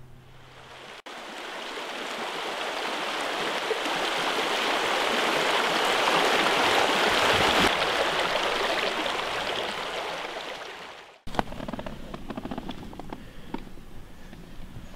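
Running stream water, a steady rushing wash that swells and then fades, starting and cutting off abruptly. After it, near the end, a run of light scattered clicks.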